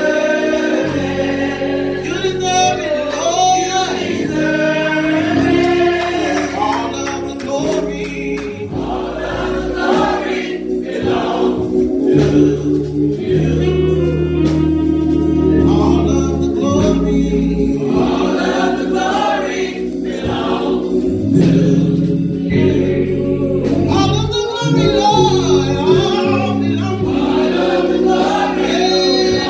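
Church gospel choir of mixed men's and women's voices singing, over a low instrumental bass line that moves in held steps.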